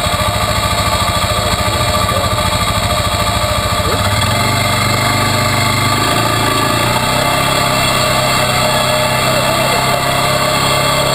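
Quad ATV engine running close to the rack-mounted microphone as the machine rides along a dirt trail. Its low throb settles into a steadier hum about four seconds in.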